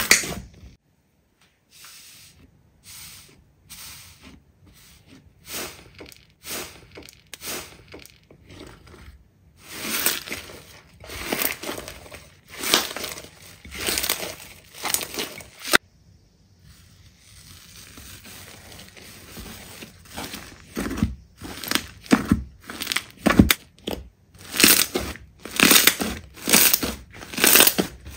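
Slime being squeezed and pressed by hand: a run of short wet squishes, faint at first, then about one a second. After an abrupt stop about halfway through, they quicken to about two a second near the end.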